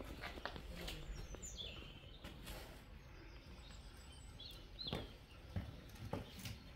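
Faint outdoor background with a few short bird chirps scattered through. There are a couple of soft knocks near the end.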